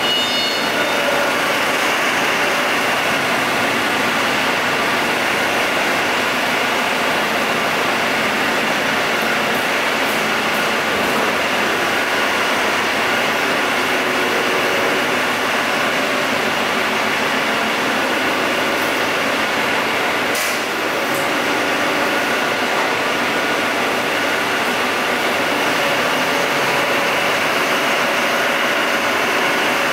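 A diesel engine running steadily, a loud continuous drone with a faint hum that holds one pitch.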